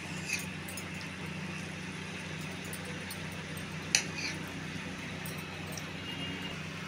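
Kitchen knife slicing through a block of paneer, with one sharp knock about four seconds in as the blade meets the stone countertop, and a few fainter taps. A steady low hum runs underneath.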